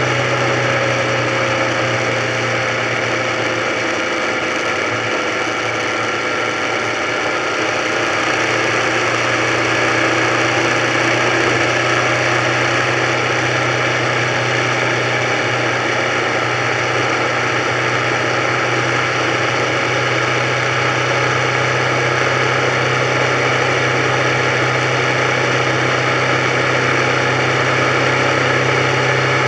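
Motorcycle engine running steadily at cruising speed, its note holding nearly constant, under a steady rush of wind and road noise.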